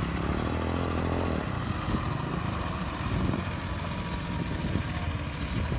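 Massey Ferguson 260 Turbo tractor's diesel engine running steadily under load as it pulls a heavily loaded trolley past. The engine note is clearest and most strongly pitched in the first second and a half, then turns rougher as the tractor moves off across the dirt.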